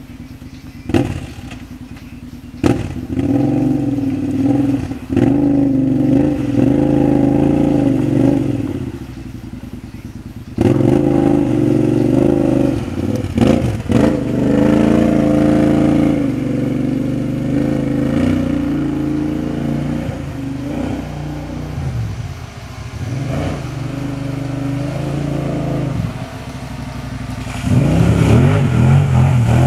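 Kawasaki Brute Force 750 ATV's V-twin engine with a Muzzy aftermarket exhaust, revved up and down over and over as the quad churns through a muddy creek, with a few sharp knocks and clatters. It is loudest near the end.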